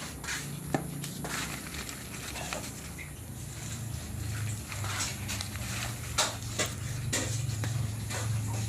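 Handling noises: scattered rustles and light clicks, as of cardboard or paper packaging being handled, over a steady low hum.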